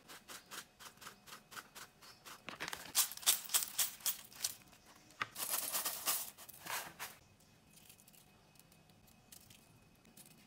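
Light ticking and rustling as chopped scallions and cilantro are scattered onto a plate of wonton skins, growing into a denser crackling rustle about five seconds in, then going quiet.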